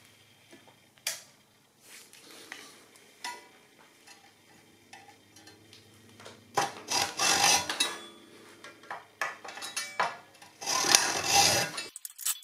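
Small hacksaw cutting through a steel rod where it sticks out of a timber block. Light clicks and scrapes come first. Then two spells of rasping back-and-forth sawing strokes follow, one starting about halfway through and another near the end.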